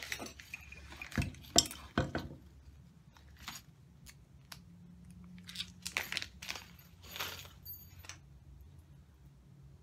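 Small metal Allen screws clinking and a small plastic parts bag crinkling as the screws are picked out by hand. Several sharp clinks in the first two seconds, then rustling with light clinks that die away near the end.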